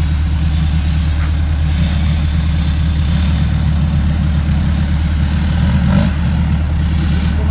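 Off-road 4x4's engine running steadily while driving the trail, with a single short knock about six seconds in.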